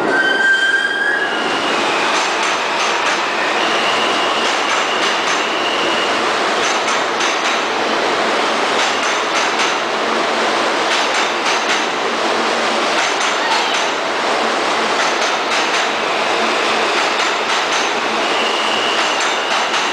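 New York City Subway train running past the platform: a steady rumble with the wheels clicking over rail joints in quick groups, and a high wheel squeal about two to six seconds in and again near the end.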